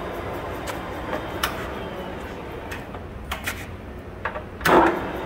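Webb Takisawa TSL-1000 D gear-head lathe running with a steady hum, with scattered clicks and one loud metallic clunk near the end as its control levers are worked.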